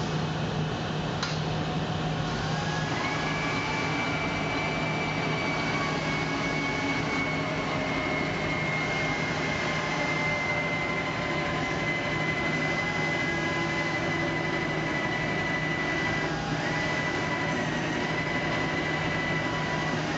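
Kiln bell-lift winch running steadily as it lowers the kiln section, a constant low hum under a high whine that comes in about three seconds in and slowly drifts lower in pitch.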